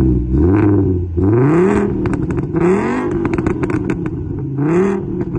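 V5 engine revving in a series of throttle blips, its exhaust note rising and falling about four times.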